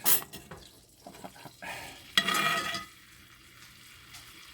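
A metal spoon scraping and clinking in a hot cast iron skillet, scooping melted butter and pan juices to baste a steak, with a sharp clink at the start and a louder scrape-and-sizzle about two seconds in. A low sizzle from the pan carries on between.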